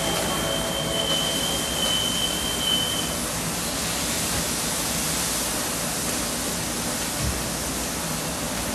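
Food sizzling steadily on a hot steel flat-top griddle over a gas range as liquid is squeezed onto it. A thin steady high tone stops about three seconds in.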